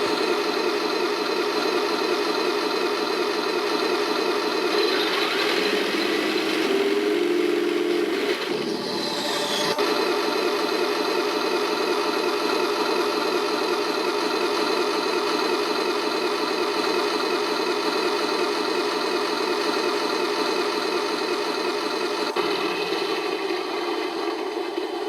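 Heng Long RC tank's electronic sound unit playing its synthesized engine sound through a small speaker, steady and rattly like an idling engine. Between about five and ten seconds in, other effects break in, including a falling whine, before the steady engine sound returns.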